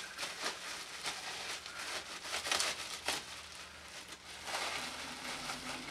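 Clear plastic wrapping crinkling and rustling as it is handled and pulled apart by hand, in irregular bursts.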